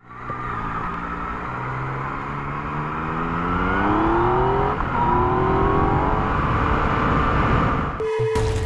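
Yamaha XSR 900's three-cylinder engine accelerating hard, its pitch rising steadily, dropping at an upshift about five seconds in, then rising again. Near the end it cuts off abruptly into a sharp crash-like effect and a held tone.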